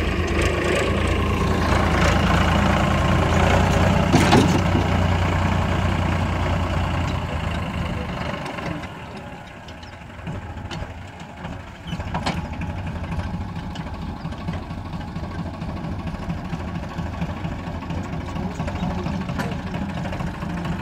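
Diesel tractor engines running. The engine is loud for the first several seconds, with a sharp clank about four seconds in, then drops away. From about twelve seconds a Powertrac 434 DS tractor's diesel engine runs steadily.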